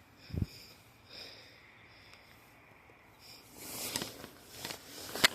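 A person sniffing and breathing faintly close to the microphone, with one short low thump about half a second in. Near the end, rustling and sharp clicks of handling noise build up, ending in a loud click.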